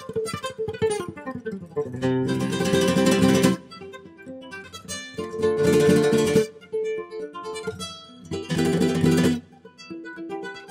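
Acoustic guitar music: three loud strummed chords, each held for a second or so, with single picked notes between them.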